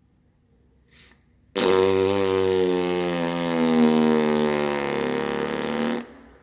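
One long fart noise, pitched and drawn out, starting abruptly about a second and a half in, sagging slightly in pitch and cutting off about four and a half seconds later.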